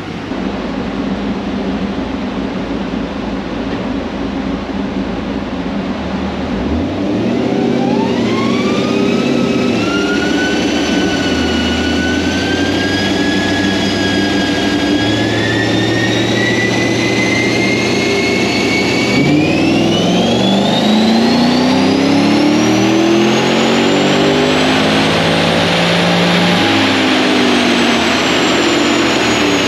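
Camaro V8 with a racing camshaft running on a chassis dynamometer. It runs steadily at first, then accelerates for about twenty seconds: the engine note climbs and a whine rises with it as road speed builds on the rollers. It eases off near the end.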